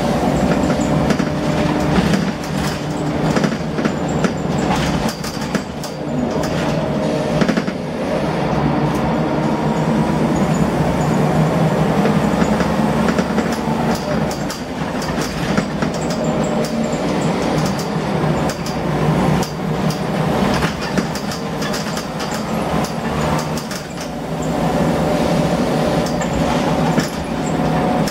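A Scania L94UB bus's five-cylinder diesel engine and ZF automatic gearbox, heard from inside the saloon while under way, the engine note rising and falling through the gears. Frequent rattles and knocks come from the bodywork and fittings. The engine is one the uploader calls a bit rough.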